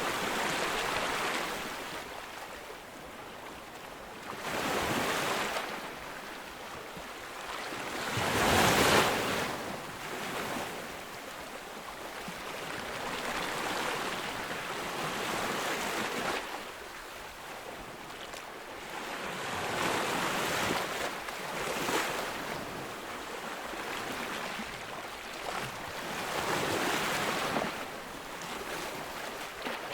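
Ocean waves breaking on a beach, the surf rising and falling every few seconds. The loudest wave crashes about nine seconds in.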